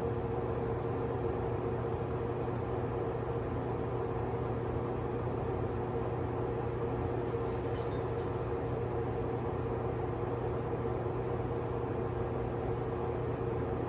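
A steady, unbroken hum with a few held tones under an even haze, like a running machine; a faint short tick comes about eight seconds in.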